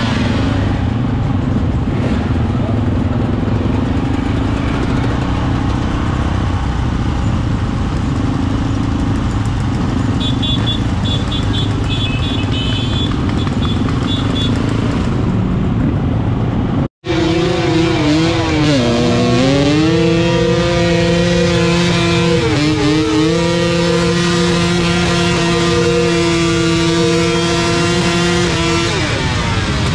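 Many dirt bike engines running together in a slow-moving pack, a mix of idling and throttle blips. After a cut, one dirt bike engine is held at high revs, its pitch steady apart from two short dips, then it falls off near the end.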